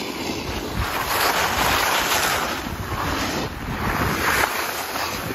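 Wind rushing over a phone microphone and the hiss and scrape of edges sliding on packed snow while riding down a ski slope, swelling about a second in and again near four seconds.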